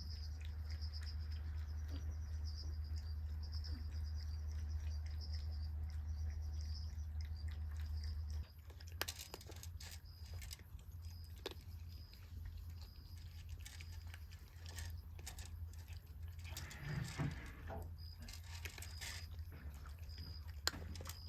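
Insects chirping in a steady pulsing trill over a low steady rumble that cuts off about eight seconds in, followed by scattered small clicks and crunching sounds.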